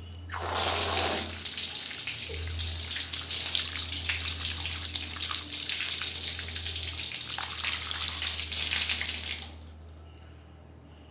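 Water running hard from a tap, starting just after the start and cutting off about two seconds before the end, over a steady low hum.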